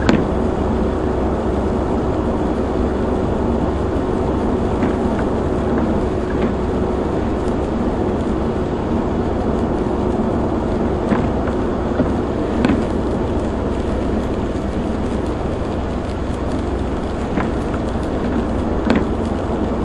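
Steady in-cabin road noise of a Ford Crown Victoria driving on wet pavement in the rain: tyre hiss and running noise, with a faint steady hum that fades out a little past halfway. A few short, scattered clicks sound now and then.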